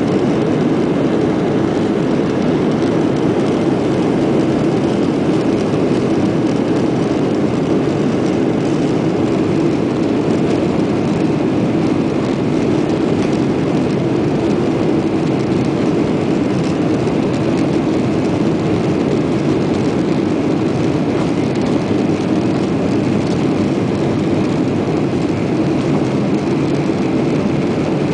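Boeing 737-800 airliner's CFM56-7B turbofan jet engines running with a steady, even rumble and roar that holds constant in level and pitch.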